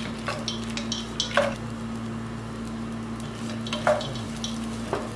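Wooden spatula stirring and tossing poha (flattened rice) with peanuts in a nonstick pot, giving irregular short scrapes and knocks against the pan, the loudest about a second and a half in and about four seconds in. A steady low hum and faint hiss run underneath.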